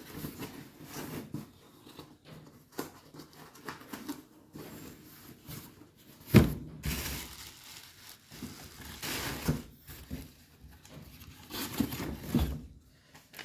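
Cardboard box and plastic-bag packaging being handled, rustling and crinkling on and off, with a sharp knock about six seconds in.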